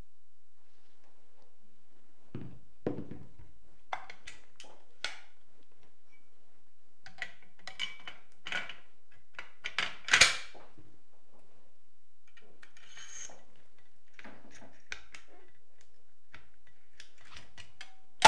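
Metal clicks, knocks and sliding sounds as the Vityaz-SN submachine gun is reassembled with the RP-2 charging handle fitted, parts being worked into the receiver. Clusters of clicks come and go, with a louder clack about ten seconds in and a sharp metallic snap at the very end.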